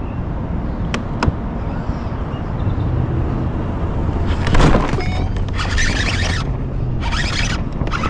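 Water splashing in rough bursts from about halfway through, over a steady low rumble of wind or water noise. There are two sharp clicks about a second in.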